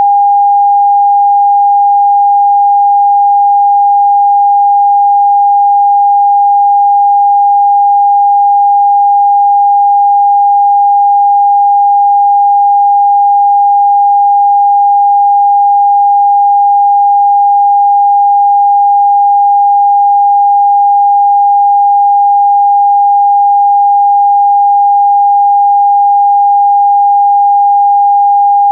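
Broadcast test tone of the NRK PM5544 test card: a single pure steady tone, mid-pitched, held at constant loudness without a break.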